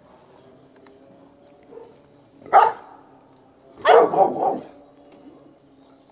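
Greater Swiss Mountain Dog puppies barking: one short bark about two and a half seconds in, then a quick run of barks about a second later.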